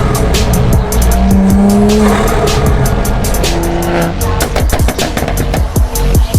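Toyota Supra engine running loud, mixed in with an electronic music track that has a steady, fast beat.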